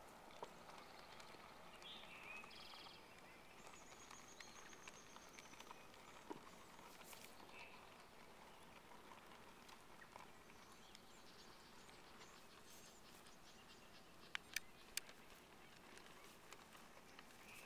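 Near silence: faint outdoor background with a few faint high chirps and a short high trill early on. About three-quarters of the way through come three or four sharp clicks.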